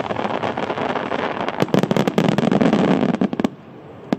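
Starmine aerial fireworks in their closing barrage: a dense, rapid run of bangs and crackling bursts that cuts off suddenly about three and a half seconds in, followed by one lone pop near the end.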